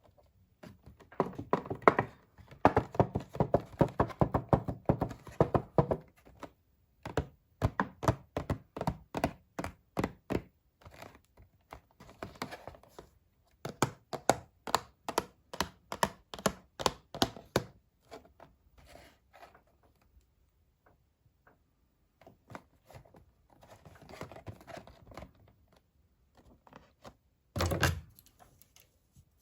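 Toy doll packaging being handled and opened: quick runs of sharp taps and clicks on cardboard and plastic with some crinkling, broken by short pauses, and one louder thump near the end.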